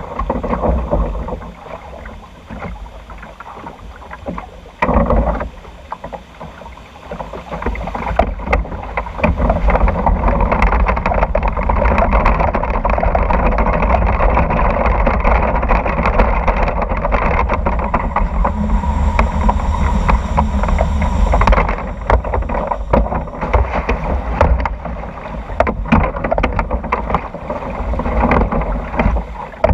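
Log flume ride heard from the boat: water rushing and sloshing along the trough. From about nine to twenty-one seconds, while the boat climbs the lift hill, a louder steady rumbling run of noise takes over, then it drops back to water and light knocks.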